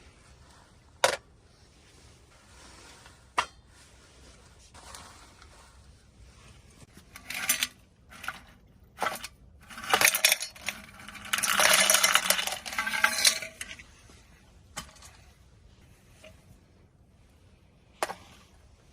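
Metal cookware and utensils clinking, clattering and scraping as they are handled. There is a loud run of clatter in the middle, with a few single sharp knocks before and after it.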